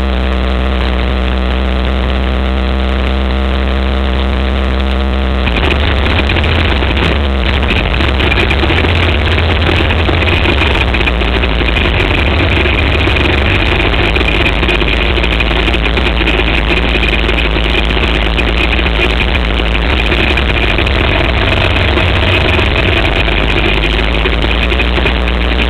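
Micro sprint car's 600cc motorcycle engine running at low revs while rolling slowly, heard from on board. Its note holds steady for about five seconds, then turns rougher and more uneven, with a steady high whine above it.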